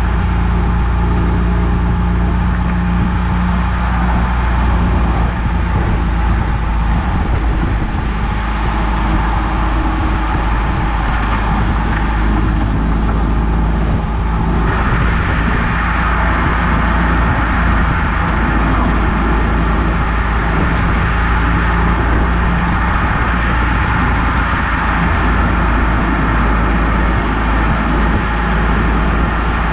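Eunos Roadster driving: a steady engine drone under a loud rumble of road and wind noise. The hiss of the road noise grows louder about halfway through.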